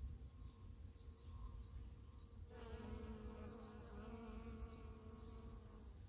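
A honeybee buzzing close by in flight, a steady wingbeat hum that starts suddenly about two and a half seconds in and keeps on.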